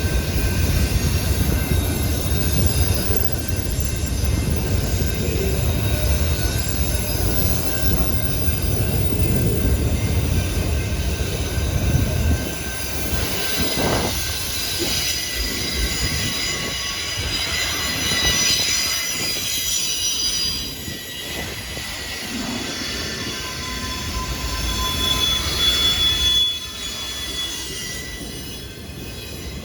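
Train rolling past, a heavy low rumble for the first dozen seconds. The wheels then squeal on the rails, several high-pitched tones at once, and the sound drops away near the end.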